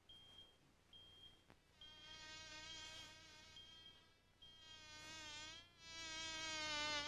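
Operating-room heart monitor beeping a short, high, single tone a little more than once a second. About two seconds in, a steady electric buzzing whine joins it and grows louder, briefly dropping out near the end before coming back stronger.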